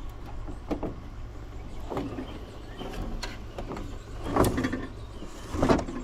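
Knocks and clatter from the metal housing and parts of a coffee maker being handled during teardown: about five short knocks, the loudest two near the end.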